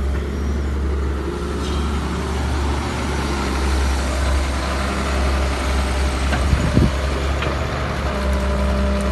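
Excavator's diesel engine running steadily, with a short knock about seven seconds in.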